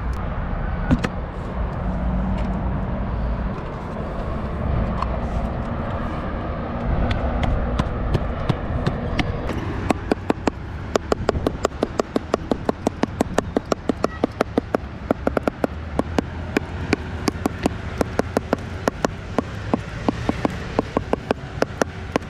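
Steady rumble of city traffic far below. About halfway through, a rapid, even clicking starts, about four to five clicks a second, and keeps going.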